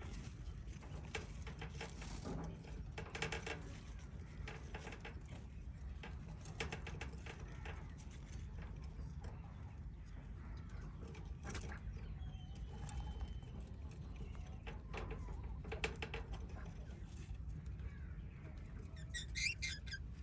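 Small pet parrots chirping faintly now and then, with a quick run of high chirps near the end, over a steady low rumble and scattered soft clicks.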